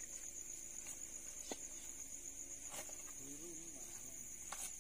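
Crickets chirping in a steady high-pitched chorus, with a few faint ticks and a brief faint voice in the background.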